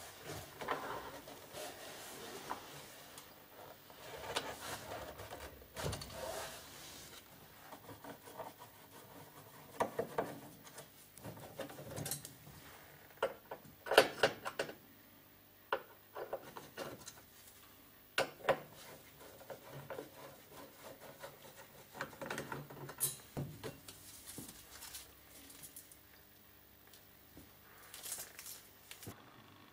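Handling noise from taking the vented back panel off a Marshall JCM 900 valve amp head with a cordless screwdriver: scattered clicks and knocks with rubbing between them. The loudest is a sharp click about 14 seconds in.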